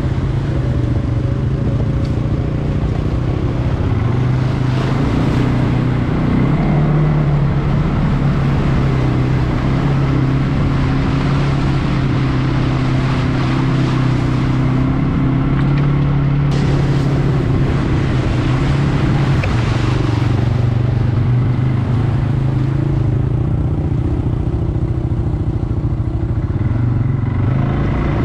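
CFMoto CForce 520 ATV's single-cylinder engine running steadily under way, its note changing only a little.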